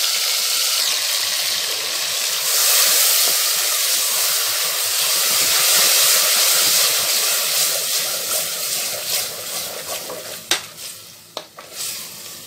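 Spiced minced meat frying in hot oil in a pressure cooker, sizzling loudly and steadily just after it was tipped in. The sizzle fades over the last few seconds, with a few sharp clicks near the end.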